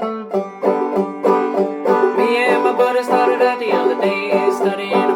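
Clawhammer banjo played solo, a quick, even rhythm of plucked notes over low notes that ring steadily underneath.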